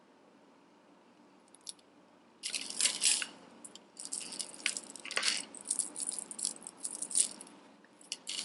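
Costume jewelry and beads rattling and clicking as pieces are picked up and sorted by hand, in a run of irregular bursts that starts about two and a half seconds in and dies away near the end.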